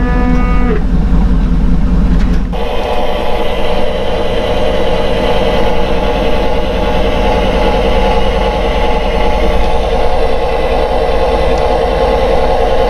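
A motor running steadily, its sound changing abruptly about two and a half seconds in and then holding steady.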